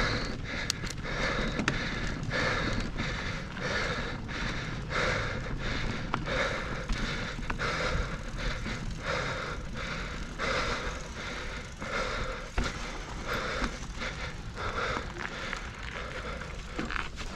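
A mountain biker panting hard, about one breath every two-thirds of a second, over the steady rumble of knobbly tyres rolling on a gravel dirt trail. The bike gives a few sharp knocks as it rattles over bumps.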